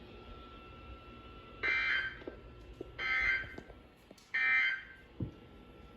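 Three short bursts of EAS/SAME digital data tones, a harsh warble about half a second each, a little over a second apart: the end-of-message code that closes a NOAA Weather Radio tornado watch alert.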